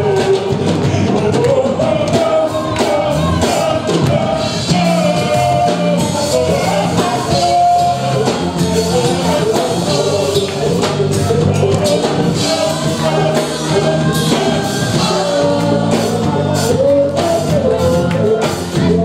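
Live gospel song: a group of singers with a lead vocalist on a microphone, backed by a band with a steady beat.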